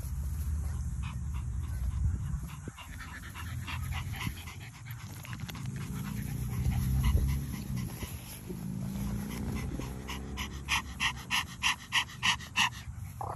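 French bulldog panting with its face in the grass, ending in a quick regular run of breaths, about three a second.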